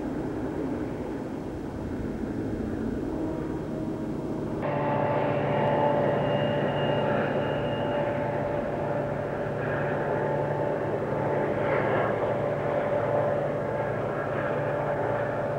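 Amtrak F40PH diesel locomotives working a passenger train upgrade, a steady engine drone over the rumble of the train. About five seconds in the sound changes abruptly and grows a little louder, with a steadier hum.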